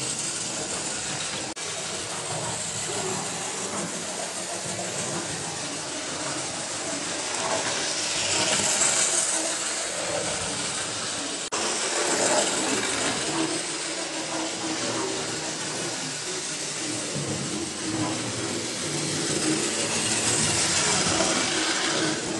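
Model railway trains running round the layout: a steady rolling rattle of small metal wheels on track with the whirr of their electric motors. Two short clicks come about ten seconds apart.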